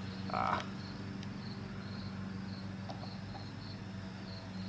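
Crickets chirping in a steady rhythm, about two to three chirps a second, over a low steady hum. A short scratchy noise about half a second in is the loudest moment.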